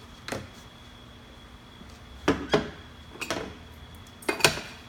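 Metal tooling being handled on a workbench and a shrink-fit machine: about five sharp clinks and knocks, the loudest near the end. A faint steady high whine sits behind them.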